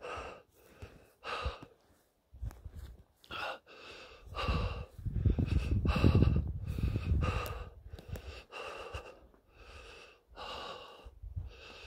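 A man breathing hard, in and out about once a second, out of breath from excitement and high elevation. A low rumbling builds up about four seconds in and fades by about eight seconds.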